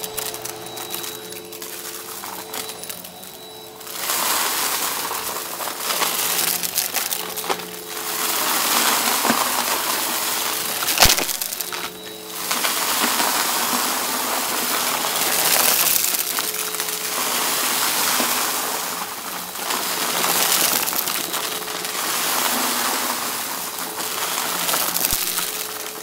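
Bissell upright vacuum cleaner running with a steady motor hum while its brushroll sucks up small dry debris from carpet: crunching and rattling that swells and fades with each push over the mess. One sharp crack about halfway through.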